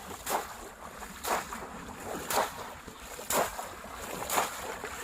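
Splashing in shallow water, one splash about every second, five in all, over a steady watery hiss.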